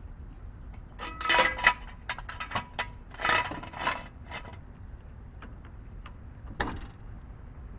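Irregular metallic clinks and knocks from metal tools or parts being handled, one of them briefly ringing, followed by scattered light ticks.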